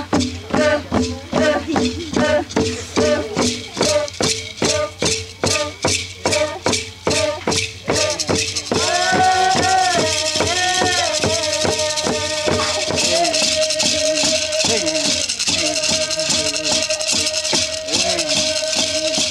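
Avá Guaraní ceremonial chant with rattles: voices sing over rhythmic rattle strokes about twice a second. About eight seconds in, the rattling turns into a continuous shake under long held sung notes.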